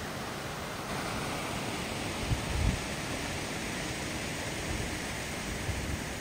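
Water rushing steadily through the bottom of a wooden canal lock gate into the lock chamber, a little louder after about a second. A brief low gust of wind on the microphone comes midway.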